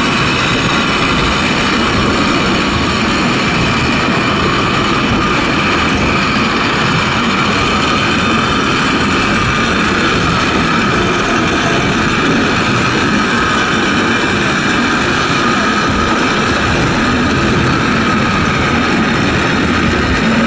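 Water-balanced cliff railway car running on its track: a steady rolling rumble and hiss from the wheels on the rails and the hauling cable, with a faint steady whine over it.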